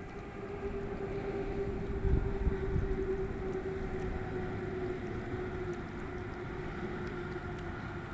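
A steady, distant engine drone held on one pitch that sinks slowly, with low rumbles of wind on the microphone about two to three seconds in.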